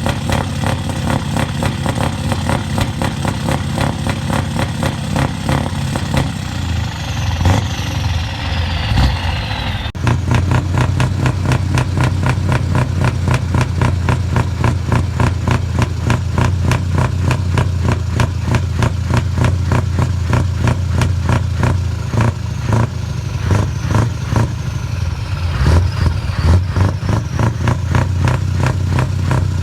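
Diesel truck engines with open exhaust pipes running loud, a fast low firing pulse dominating. A high whistle falls in pitch twice, and the sound changes abruptly about a third of the way in.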